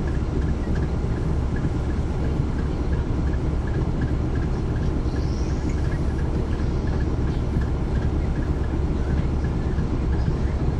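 Caterpillar C13 ACERT diesel engine of a 2009 NABI 416.15 (40-SFW) transit bus running, heard from the rear seats close to the engine as a steady, deep rumble. A faint regular ticking sits above it.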